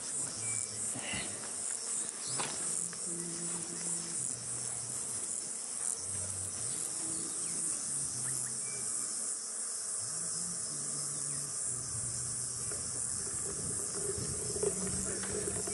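Steady high-pitched chorus of insects, with faint low buzzes that come and go.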